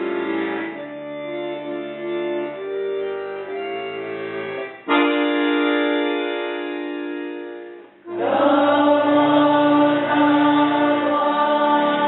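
Russian folk choir with accordion accompaniment. Accordion chords play, then a held chord starts suddenly about five seconds in and fades. After a brief break the choir and accordion come in loudly on a sustained chord.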